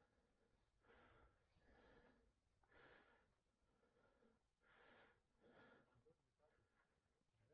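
Faint heavy breathing, roughly one breath a second.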